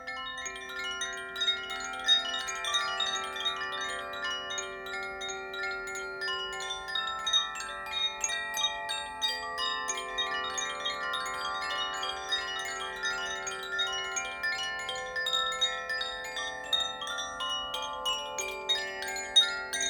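Koshi chimes of the water and earth elements (Aqua and Terra) being swayed, their clappers striking the tuned rods in a continuous stream of light strikes whose ringing tones overlap and hang on into one another.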